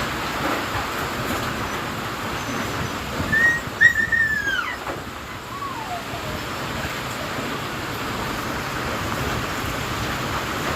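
Steady rushing noise of strong typhoon wind and heavy rain. About three and a half seconds in, a brief whistle-like cry rises slightly and then falls in pitch, and a shorter, lower falling one follows about two seconds later.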